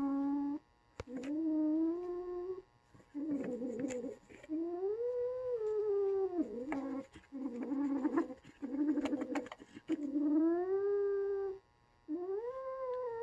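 A kitten growling and yowling over a toy: a string of about eight long, low, drawn-out calls, some smooth and rising then falling, others rough and rasping, with short breaks between them.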